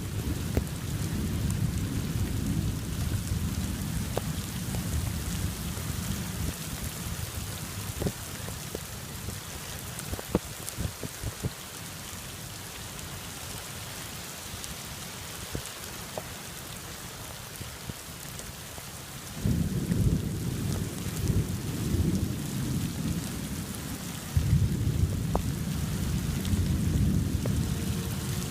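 Heavy rain falling steadily in a severe thunderstorm, with scattered sharp drops ticking close by. Thunder rumbles at the start and dies away over several seconds, then rolls in again twice in the second half.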